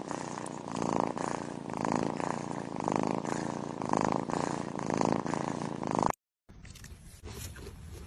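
A cat purring steadily, swelling and fading about once a second. It cuts off suddenly about six seconds in, and a fainter outdoor sound follows.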